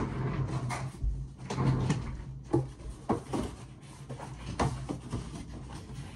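Scattered knocks and clunks of objects being handled and moved about, with several separate sharp knocks in the second half, over a steady low hum.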